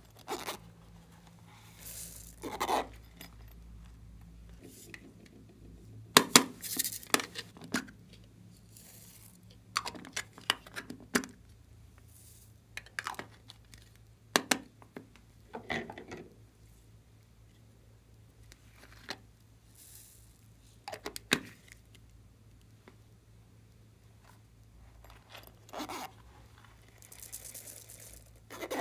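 Small plastic cases handled and opened by hand, with scattered clicks, rattles and crinkles. Near the end, a short hiss of tiny foam beads poured into a glass tray.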